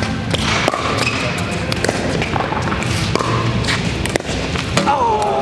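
Pickleball paddles hitting a hard plastic ball during a rally, with the ball bouncing on the court: a string of sharp, irregular pops and knocks. Near the end a drawn-out pitched call begins.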